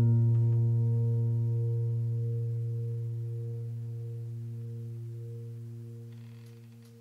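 Background piano music: a low chord, struck just before, rings on and slowly fades away to almost nothing near the end.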